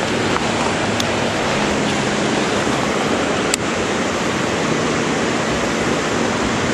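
Shallow rocky stream running over stones: a constant, steady rush of water, with one sharp click about three and a half seconds in.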